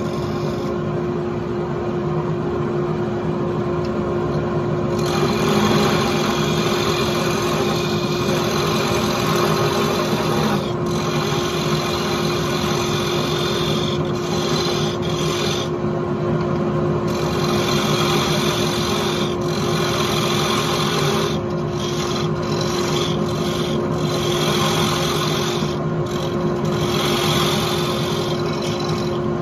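Wood lathe running with a steady hum while a hand-held turning tool cuts a spinning wooden blank: a hissing, rasping scrape of wood being cut. The scrape gets heavier about five seconds in and comes and goes in short pauses as the tool is pushed in and eased off.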